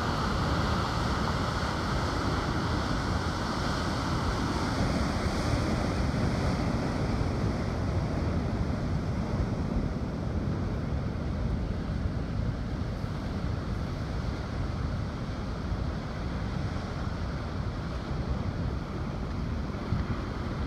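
Dam spillway outflow: a steady rush of churning whitewater pouring out at a strong flow, with wind noise on the microphone.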